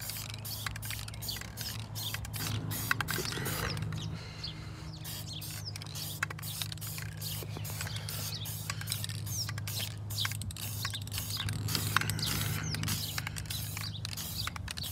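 Aerosol spray-paint can being shaken, its mixing ball rattling in quick irregular clicks over a steady low hum.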